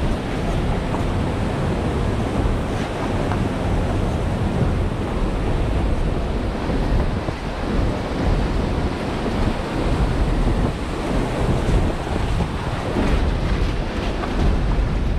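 Wind buffeting the microphone, heavy and gusty at the low end, over the steady rushing of a fast glacial river alongside.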